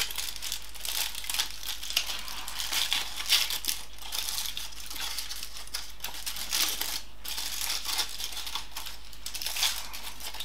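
Paper wrapper being unwrapped from a chocolate bar: continuous crinkling and rustling made up of many small crackles.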